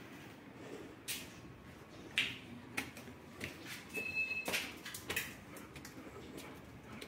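Scattered clicks and knocks of a metal-framed glass door being handled and walked through, with a brief high squeak about four seconds in.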